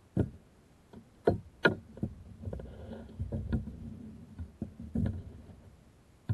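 Handling noise in a plastic kayak while a small largemouth bass is unhooked: a series of sharp knocks, three loud ones in the first two seconds, with a stretch of low rumbling and rustling in the middle and another knock about five seconds in.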